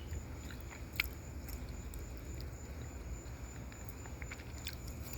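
Outdoor evening ambience: a steady high insect trill, typical of crickets, over a low rumble, with scattered small clicks and one sharper click about a second in.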